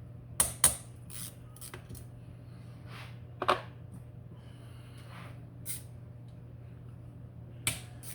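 Metal hand tools clicking and clinking as bolts and nuts on a Honda CB750 engine's top end are loosened: a scattering of separate sharp clicks and taps, over a steady low hum.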